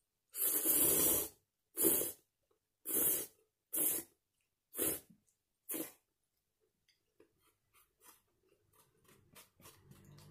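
Soupless instant oil noodles (abura soba) being slurped from chopsticks: six loud, short slurps in the first six seconds, followed by faint small ticks of chewing.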